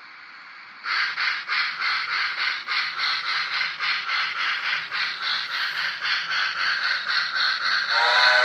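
DCC sound decoder in an H0-scale 4-4-0 steam locomotive model playing steam sounds: a soft hiss, then about a second in a steady run of exhaust chuffs at about four a second as the engine gets under way, and near the end a chime steam whistle starts to blow.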